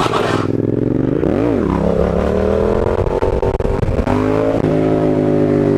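Yamaha MT-07's parallel-twin engine under way: a quick blip of the throttle, then pulling up steadily in pitch, a sudden drop like a gear change about four seconds in, and running on at a steady, slowly falling pitch.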